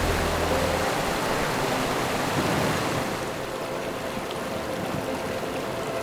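Shallow mountain stream rushing over rocks, a steady water noise that eases a little about halfway through.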